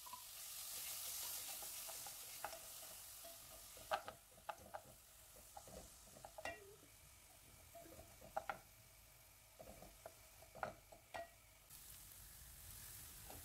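Finely chopped onion frying in hot butter and oil in a non-stick pot, sizzling faintly, the hiss strongest in the first few seconds. A wooden spoon stirs it, knocking and scraping against the pan now and then.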